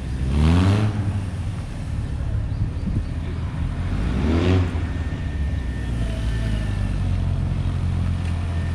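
Yamaha XJR1200's air-cooled inline-four engine running through a tight slalom, blipped up in short rising revs about half a second in and again about four and a half seconds in, and pulling steadily at low revs in between.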